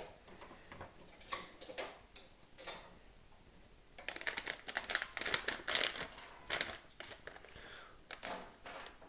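Foil drink pouch crinkling as it is handled and spread open, a run of crisp crackles that grows busier about four seconds in.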